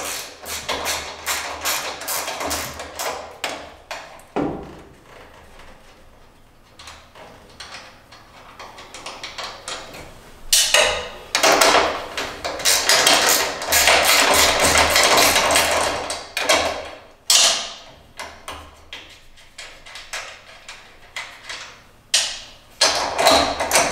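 Metal hand tools clicking, tapping and scraping on a steel bearing and shaft as the bearing is taken apart to free the anti-roll bar shaft. About halfway through comes a louder, longer stretch of dense clatter.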